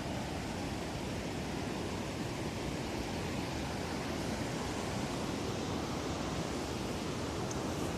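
Vernal Fall's water rushing, a steady roar without breaks.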